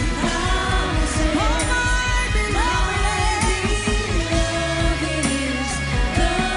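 Live worship band music: a singer's voice sliding between long held notes over sustained chords, bass and a steady drum beat.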